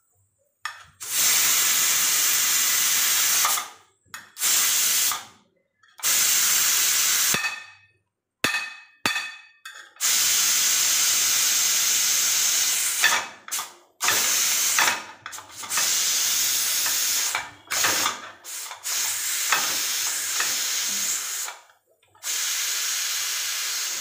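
Steam hissing out of an aluminium pressure cooker's vent in about ten separate bursts of one to three seconds, each stopping short, as the whistle weight is lifted with a knife to release the pressure.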